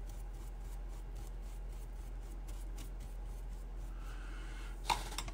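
Faint scratching of a paintbrush dabbing watercolour paint onto wet paper, over a steady low hum. Two sharp clicks come near the end.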